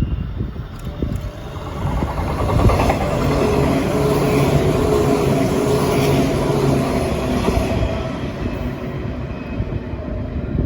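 A JR 485 series "Hana" electric train passing on empty stock: its running noise builds over the first couple of seconds, holds loud and steady with a low hum, then fades away.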